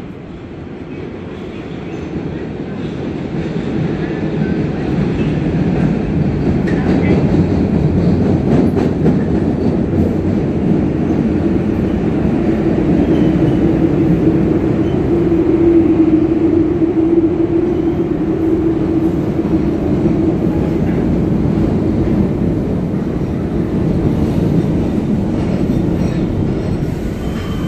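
MBTA Red Line subway train arriving at an underground platform: a rumble that builds over the first few seconds as it comes out of the tunnel and stays loud as the cars run alongside the platform. A steady hum sits over the rumble for several seconds in the middle.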